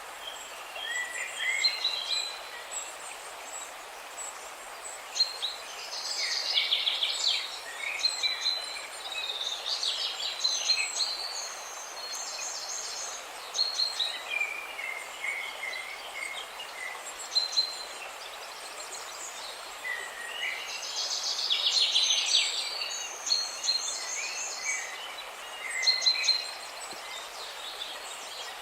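Several birds chirping and calling in short, repeated phrases and trills, busiest in a few clusters, over a steady hiss of background noise.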